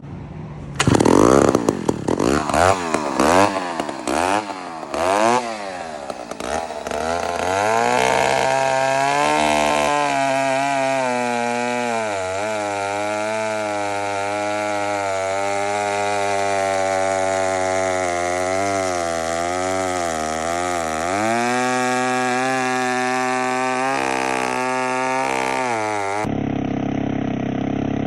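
1959 Mac 150 80cc two-stroke chainsaw, its carburetor freshly cleaned, revved up and down in several quick blips. It then holds at high speed, cutting wood, and its note sags briefly a few times under load.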